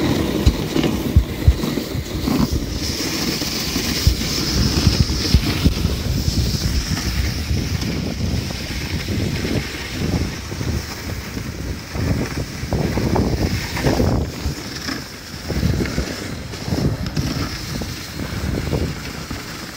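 Dog sled runners sliding over snow, with an uneven rumble and a hiss, and wind buffeting the microphone.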